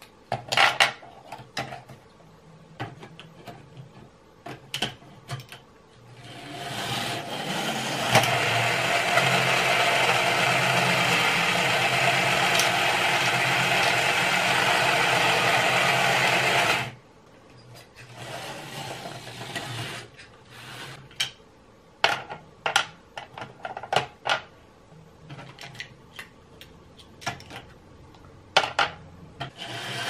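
Small electric motor of a Tyco US-1 toy truck on its powered track, whirring steadily for about ten seconds and then cutting off suddenly. Light plastic clicks and clatters come before and after the run.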